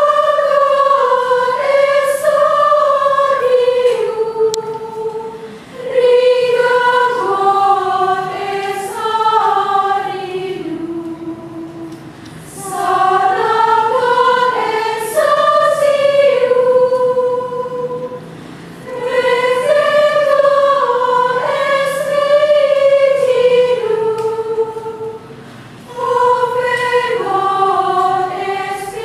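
Women's choir singing Gregorian chant in unison, without accompaniment, in long phrases broken by short pauses for breath.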